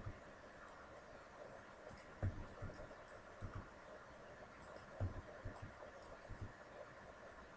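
Faint computer mouse and keyboard clicks, about half a dozen separate clicks scattered through, over a quiet steady room background.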